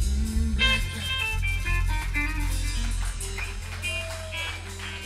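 Live blues band playing: electric guitar runs over a loud held low bass note, which stops about three and a half seconds in as the music dies down.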